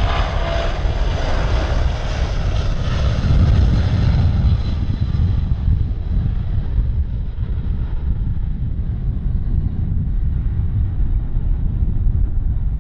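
Airliner engines passing by and moving away: the hiss and whine fade over the first few seconds, leaving a steady low rumble.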